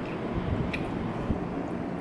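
Steady low rumble of background noise, with a faint clink of a metal fork against a ceramic plate about three quarters of a second in.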